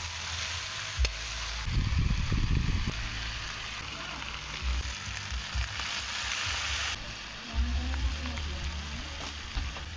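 Food frying and sizzling in a hot pan: a steady hiss, with a few low knocks about two seconds in, as from stirring.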